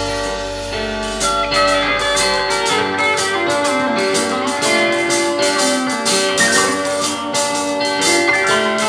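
Live rock band playing: guitars over bass and drums, with a steady cymbal beat. A low held bass note stops about three seconds in.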